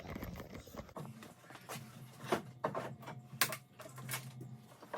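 Scattered sharp clicks and light knocks as a 1988 Subaru Justy's front bumper is worked loose and pulled off, over a faint low steady hum.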